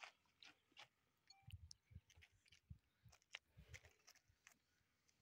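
Near silence, with faint, scattered small clicks and a few soft low thumps from hands tying fishing line onto a hook.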